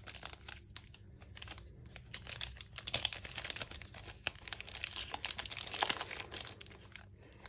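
Plastic wrapper of a trading-card pack crinkling and tearing as it is pulled open by hand, a run of small crackles that come thickest about three seconds in and again near six seconds.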